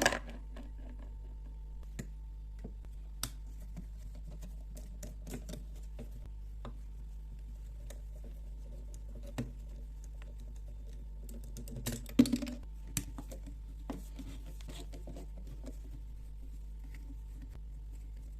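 Light, scattered clicks and taps of small metal carburetor parts and hand tools being handled, over a steady low hum. There is a sharp knock at the start and a cluster of louder clicks about twelve seconds in.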